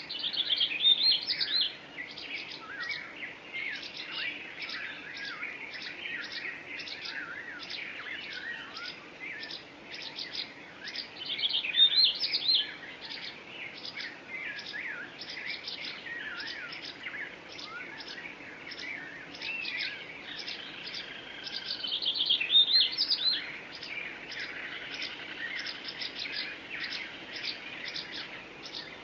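Several songbirds singing at once: warbling, gliding phrases over a quick, evenly repeated high chipping. The song swells into louder bursts near the start, about twelve seconds in, and again about twenty-two seconds in.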